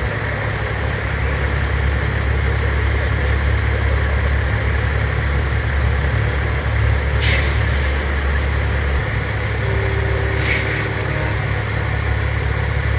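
Heavy trucks' diesel engines rumbling steadily, with two sharp air hisses from air brakes, a longer one about seven seconds in and a shorter one about three seconds later.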